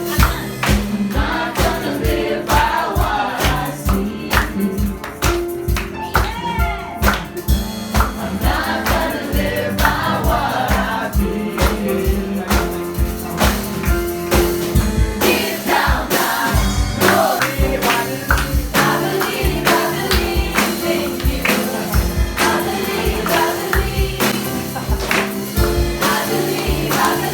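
A worship song: several voices singing over a band with a steady beat.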